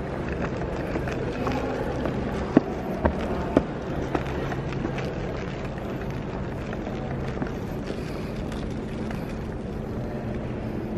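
Steady hum and air of a large indoor hall, with three sharp knocks about half a second apart a little over two seconds in.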